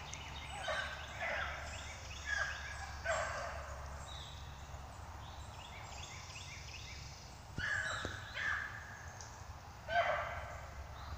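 Beagles baying on a rabbit trail: clusters of high, rising yelps in the first few seconds, a lull, then more bays from about seven and a half seconds in.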